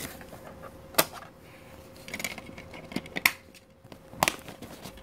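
A handful of sharp plastic clicks and knocks as a DVD is lifted out of a portable DVD player and a DVD case is handled, the sharpest about a second in and just after three seconds.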